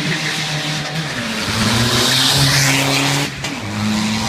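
Rally car's engine pulling hard at high revs as it accelerates away up the road, with a shift up a little over three seconds in that briefly cuts the sound and drops the pitch.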